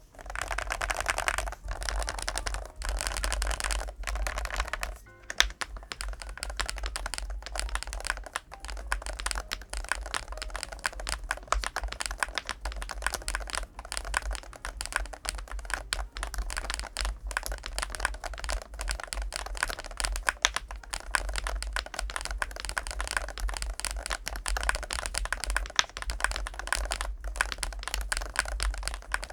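Typing on a GLITTER65 HE Pro keyboard with magnetic Hall-effect switches: a fast, continuous run of keystroke clicks, with background music underneath.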